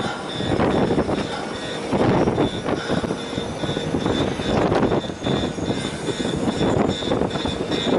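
Wind rushing and buffeting over the microphone on the deck of a cruise ship under way, swelling and easing in gusts, with a thin high-pitched whine running steadily beneath it.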